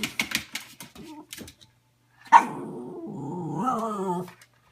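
A dog gives a sharp bark about two seconds in that runs straight into a long, wavering whine-growl, pitch bending up and down: demanding vocalising as it begs for an apple from the fridge drawer.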